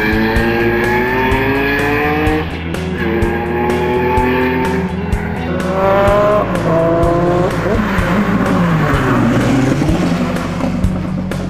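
Historic rally car engine accelerating hard up through the gears: the note climbs in each gear and drops sharply at each upshift, three or four times, then falls away as the car comes past close by.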